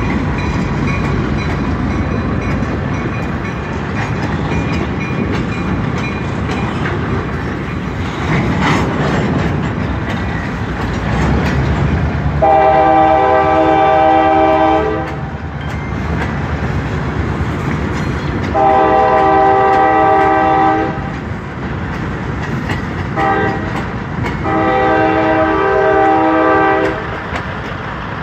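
Passing CSX diesel freight train rumbling over the crossing with its wheels clattering. About a third of the way in, its air horn sounds long, long, short, long, the standard grade-crossing signal.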